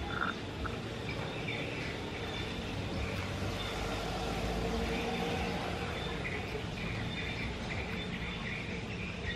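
Steady outdoor background noise: a low rumble that swells around the middle, with short high chirps repeating over it.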